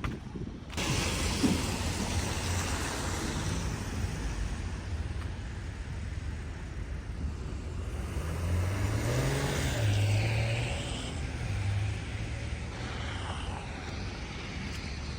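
Road traffic: a motor vehicle passing over a steady background of noise, its low engine hum growing about eight seconds in and easing off a few seconds later.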